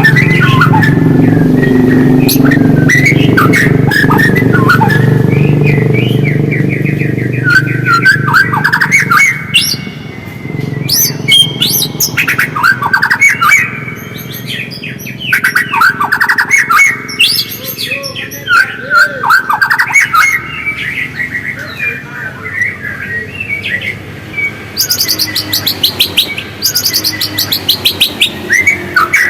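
White-rumped shama (murai batu) singing a varied song of whistled phrases and chatter, with fast ticking trills toward the end. A low hum sits under the song for the first several seconds, then fades about ten seconds in.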